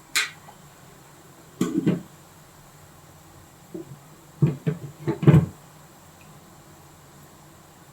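Kitchen utensils being handled: a sharp click, then several dull knocks and clatters in short clusters, the loudest cluster about halfway through.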